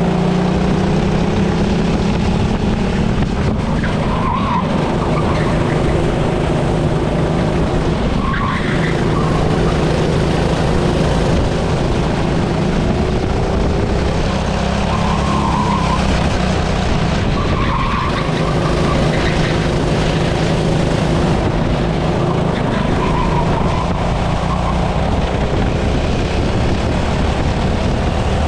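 Racing kart engine running hard over loud rushing noise. Its note drops and then climbs again every few seconds, as it brakes and accelerates through corners.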